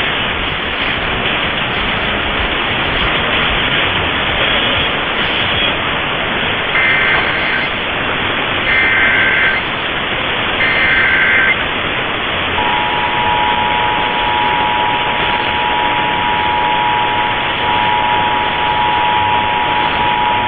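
Emergency Alert System header and attention signal received on AM radio through steady static hiss. About a third of the way in come three short data bursts of warbling paired tones about a second apart, the SAME header. Just past halfway the steady two-tone attention signal starts and holds to the end, announcing the test message.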